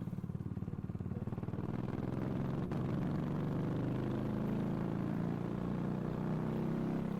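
A vehicle engine running steadily at low revs, a little louder from about two seconds in, with a single faint click near the three-second mark.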